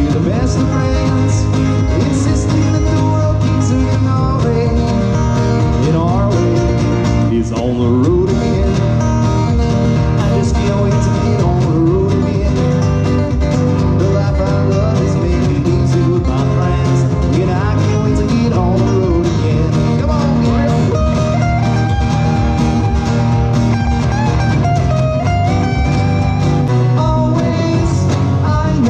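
Live band music: a strummed acoustic guitar and a second guitar playing a country-flavoured tune, with no clear lyrics sung.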